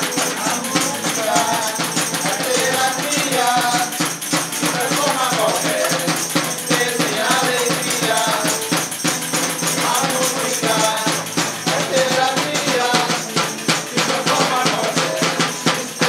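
A small group sings together over strummed acoustic guitars, with several hand-held tambourines shaking and striking a steady beat.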